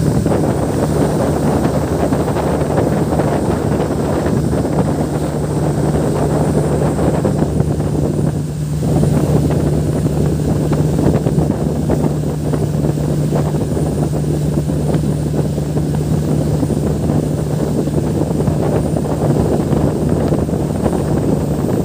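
Speedboat engine running steadily under load as it tows a parasail, a constant low hum, with heavy wind noise buffeting the microphone.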